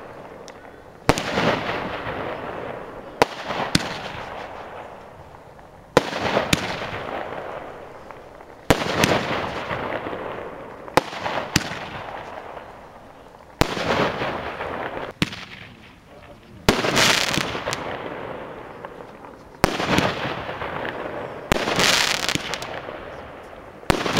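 Consumer firework battery ('Starship') firing shot after shot, about one every two to three seconds and often in pairs half a second apart. Each shot is a sharp bang followed by a crackling hiss that fades over a second or two.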